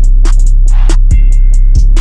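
Bass-boosted trap beat playing loud: a heavy constant sub-bass under drum-machine kicks and rapid hi-hat ticks, with a brief held synth tone in the second half.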